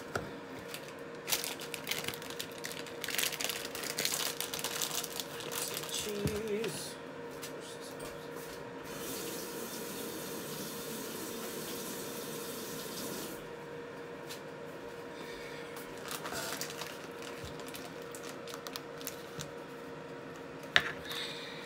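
Clinks and knocks of utensils and dishes on a kitchen counter, then a kitchen tap running for about four seconds before being turned off, with a steady hum underneath.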